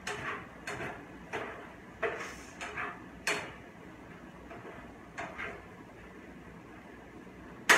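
A cooking utensil scraping and knocking against a frying pan as chicken pieces are turned, a few short strokes at irregular intervals, with a sharper, louder knock near the end.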